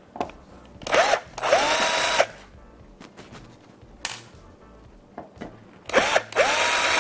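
Cordless drill backing out the two small screws that hold a stove's burner control switch. It runs in two pairs: for each screw a short burst and then a longer run, the motor whine rising as it spins up and then holding steady.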